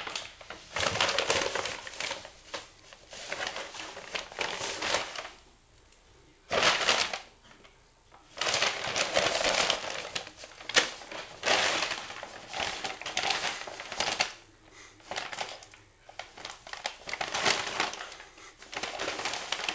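Brown paper grocery bag crinkling and rustling as a cat thrashes about inside it, in irregular bursts a second or two long with short pauses between.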